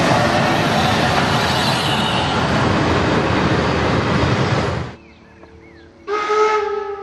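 Class 50 steam locomotive 50 3639 passing close at speed, a loud continuous rush of exhaust, running gear and wheels that cuts off abruptly about five seconds in. About a second later a steam locomotive whistle starts, one long steady note.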